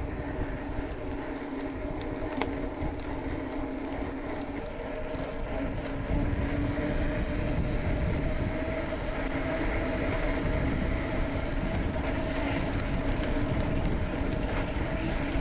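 Wind buffeting the microphone on a moving bicycle, over the rolling noise of its tyres and a steady hum; it gets louder about six seconds in.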